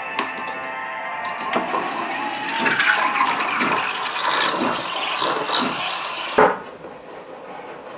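Espresso machine's steam wand frothing milk in a small pitcher. It starts as a steady tone, turns rougher and noisier after about two seconds, and ends with a short loud burst about six and a half seconds in.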